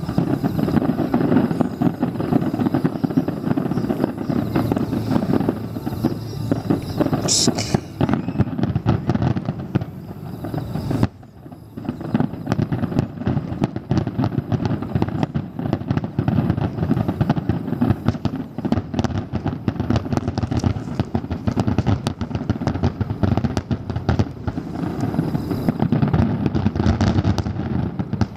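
A large starmine firework barrage: aerial shells bursting in rapid, continuous succession, a dense mass of booms and crackling. A short lull comes about eleven seconds in, and a brief high whistle about seven seconds in. It dies down right at the end.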